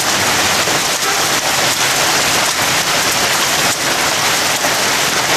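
Small hail pelting down hard, a loud, steady hiss of countless small impacts on the lawn and trampoline.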